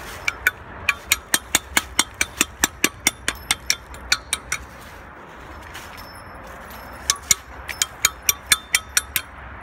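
Ringing rocks, iron-bearing boulders, struck in quick succession, about five strikes a second, each giving a short metallic ring. The strikes stop for about two and a half seconds midway, then a second run follows.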